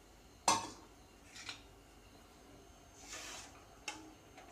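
Steel ladle and stainless-steel kadai: one sharp metallic clink with a short ring about half a second in, then soft scrapes and a lighter clink near the end as the ladle stirs thin, watery rasam.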